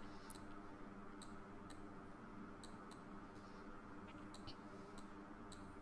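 Faint computer mouse clicks, about ten short sharp clicks at irregular intervals over a low steady hum.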